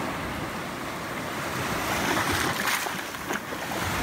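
Small sea waves breaking and washing up the shore, a steady rush of surf that swells a little about two seconds in.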